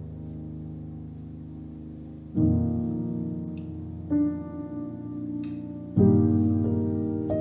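Slow solo piano background music: a new chord struck about every two seconds, each left to ring and fade.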